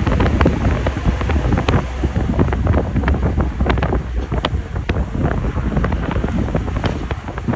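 Wind buffeting the microphone over the low rumble of a moving road vehicle, with many short knocks and rattles throughout.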